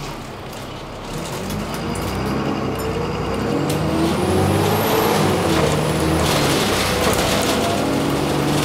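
Alexander Dennis Enviro400 double-decker bus engine pulling away, heard from inside the passenger saloon: its note rises in pitch and grows louder over the first few seconds, then runs on steadily at speed, with a faint high whine about halfway through.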